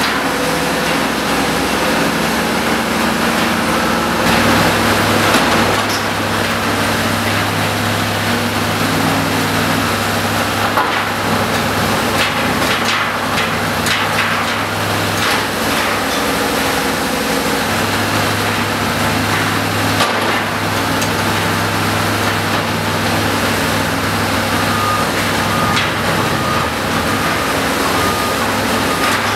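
Engine of a Menck M154 cable excavator running steadily, its note changing as the clamshell grab is worked. The grab knocks and scrapes against concrete and rubble clatters down, most densely about a third to halfway through.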